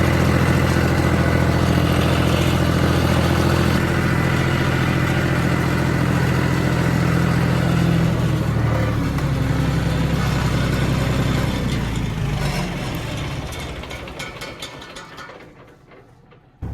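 Farm tractor engine running steadily, its pitch dropping about eight seconds in as the throttle comes down, then fading away to near silence near the end.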